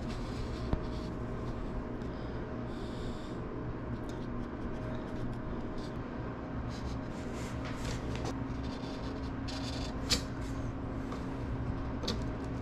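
Felt-tip marker scratching in short, faint strokes along a steel rule on an aluminium wing spar, with a couple of light taps, over a steady low background hum.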